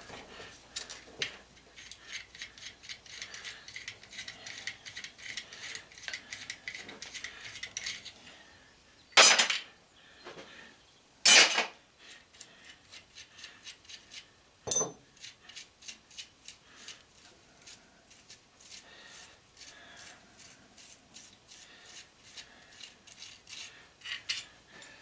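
Hand tools working on the sander's electric motor housing to get it off: long runs of rapid metallic clicking, broken by two louder metal scrapes about 9 and 11 seconds in and a sharp clank a few seconds later.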